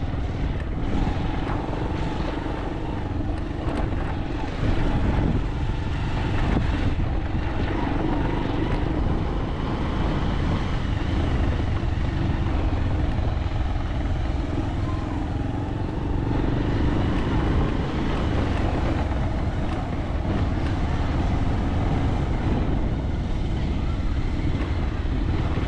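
Motorcycle engine running steadily during a ride on a dirt path, with heavy low wind rumble on the camera's microphone.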